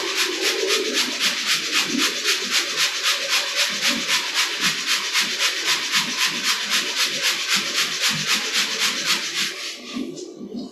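Loud, rhythmic pulsing hiss from a shop machine, about five pulses a second, stopping shortly before the end.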